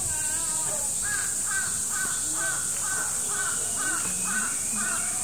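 A bird calling a run of short, evenly spaced rising-and-falling notes, about two a second, over a steady high hiss.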